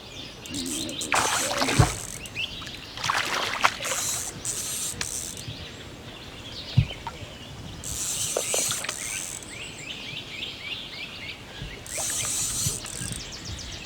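Birds chirping repeatedly. Several short bursts of high hissing noise and two dull thumps come through over them.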